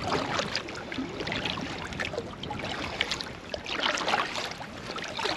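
Water splashing and dripping as a kayak is paddled, the stroke sounds swelling about every two seconds.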